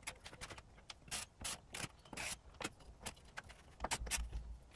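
A pen scratching on cardboard in short, uneven strokes as it traces around a steel gas pedal, with small clicks of the pedal shifting on the board and a dull bump about four seconds in.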